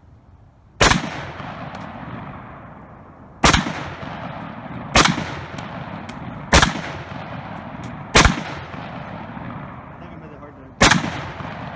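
Six shots from a 1942 M1 Garand semi-automatic rifle firing .30-06 165-grain soft-point rounds, spaced unevenly about one and a half to two and a half seconds apart. Each shot trails off in a long echo.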